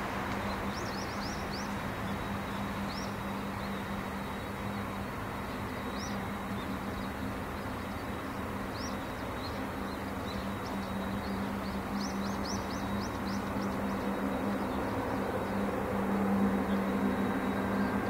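Distant noise of an Airbus A380-841 with Rolls-Royce Trent 900 engines on final approach: a steady hum over a rushing background that grows slowly louder toward the end. Small birds chirp in short runs, about a second in, around three, six and nine seconds, and a longer run about twelve seconds in.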